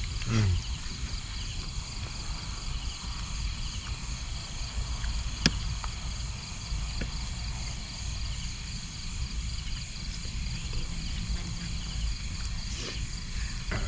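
Steady night chorus of insects and frogs, with a low rumble underneath and a few sharp clinks of spoons on plates, the loudest about five seconds in.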